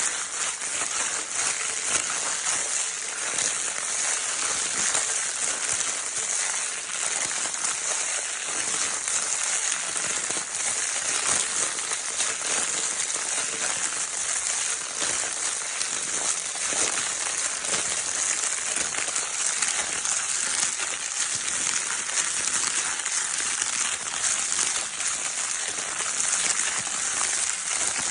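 Crinkle paper in a baby's crinkle toy, crumpled and rustled without a break: a dense, steady crackle.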